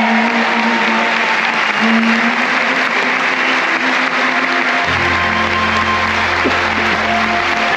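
Concert audience applauding steadily while music plays; a low bass note comes in about five seconds in.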